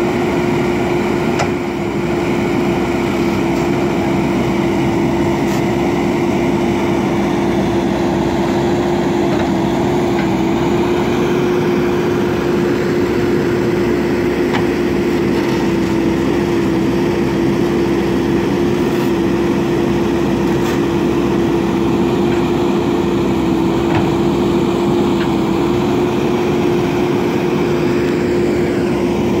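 JCB backhoe loader's diesel engine running steadily, with a strong steady hum.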